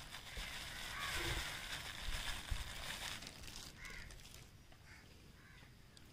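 Faint soft hiss of powdered garam masala pouring onto a heap of ground spices, fading to near silence in the last couple of seconds.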